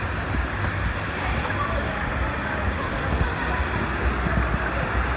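Water-park ambience: a steady rush of water with wind buffeting the microphone and faint voices in the background.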